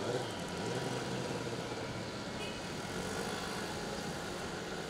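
Drag-racing motorcycle engine heard faintly from a distance, its note dropping in pitch and fading after the run, over a steady background hiss.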